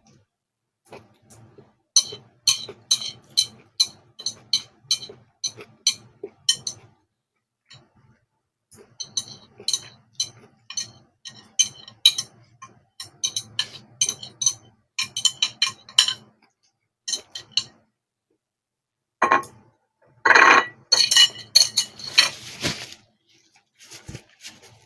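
Close-up eating sounds from a plate of fried noodles: quick, sharp clicks of chewing and of a utensil clinking on the plate, coming in runs with short pauses. About twenty seconds in there is a louder, noisier cluster of them.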